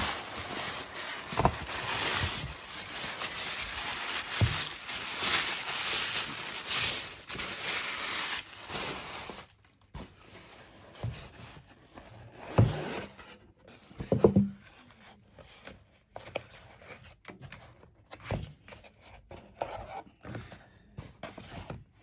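Paper gift bag rustling and crinkling as hands rummage inside it. After about nine and a half seconds this gives way to quieter scattered taps, scrapes and soft knocks as a cardboard TAG Heuer watch box is handled and its lid lifted off, with one firmer thud about fourteen seconds in.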